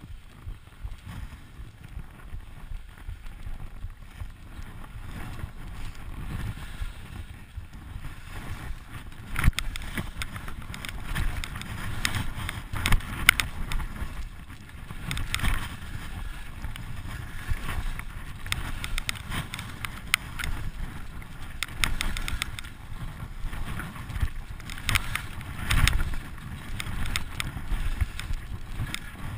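Skis sliding and scraping over snow on a downhill run, with wind rumbling on the microphone and occasional sharp knocks from bumps in the snow.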